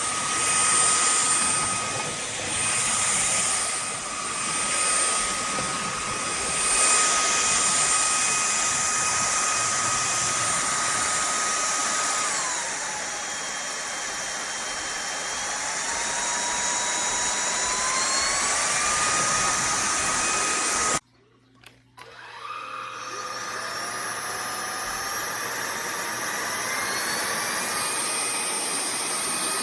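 Cordless stick vacuum running: a steady rush of air with a high motor whine. About twelve seconds in, the whine dips in pitch and climbs back. About 21 seconds in, the sound cuts out for about a second, then the whine rises again as the motor spins back up.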